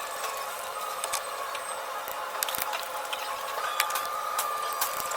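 Scattered clicks and taps of hand tools working on the engine's spark plugs, with a faint steady high whine coming in about three and a half seconds in.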